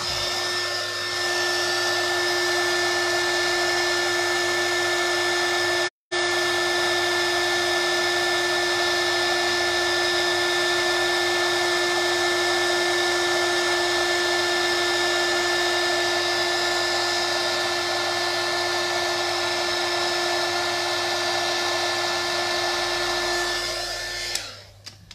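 Embossing heat tool running loud and steady, a fan whine over a hiss, melting black embossing powder on a stamped card. The sound cuts out for an instant about six seconds in, and the tool switches off near the end.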